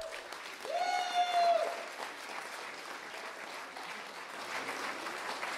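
Audience applauding at the end of a speech, with one long, high held cheer rising above the clapping about a second in.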